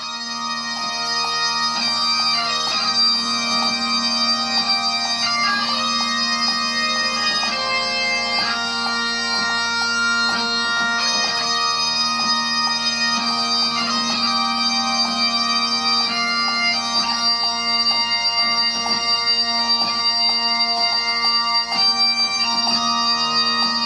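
Music: a melody of held notes that step from one to the next over a continuous low drone.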